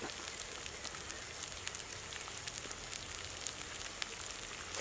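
Curry gravy simmering over a wood fire: a steady sizzling hiss with many small scattered pops and crackles.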